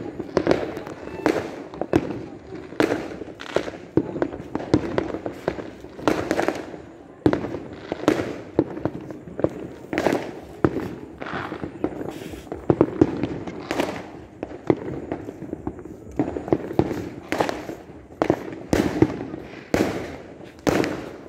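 Fireworks going off all around in a dense, irregular barrage: sharp bangs of varying loudness, several a second, over a constant rumble and crackle of more distant bursts.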